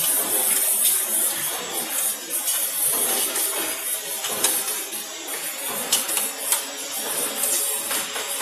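Aluminium radiator core assembly line running: a steady mechanical clatter and hiss, with a few sharp metallic clicks in the second half.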